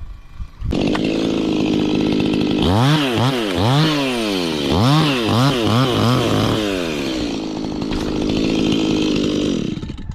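Two-stroke chainsaw engine starting up and idling, then revved in about six quick up-and-down throttle blips before settling back to idle and cutting off near the end.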